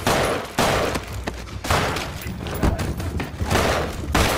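A pistol going off again and again in a close struggle over the gun: about five loud bangs roughly a second apart, each with a short ringing tail, among the thuds of the fight.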